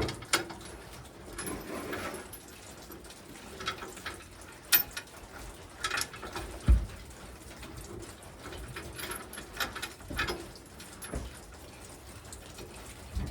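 A few faint, scattered clicks and knocks, with one dull thump about seven seconds in, over low background sound.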